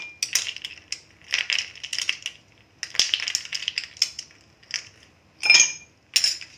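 Ice cubes dropped one after another into a drinking glass, clinking against the glass and each other, about a dozen sharp clinks with a brief high ring.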